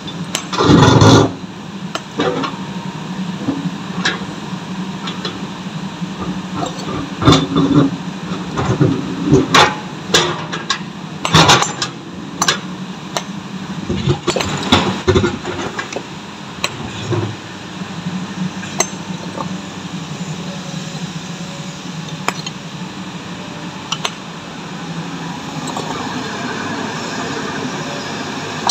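Split stone slabs clinking and knocking against each other as they are handled and walked on, in a run of sharp knocks over the first half that fade out about halfway through. Under them a diesel excavator engine hums steadily and carries on alone after the knocks stop.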